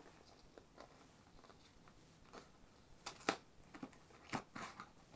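Small cardboard shipping box handled and opened by hand: faint scattered rustles and clicks, with a louder cluster of cardboard crunching about three seconds in and another burst a second later.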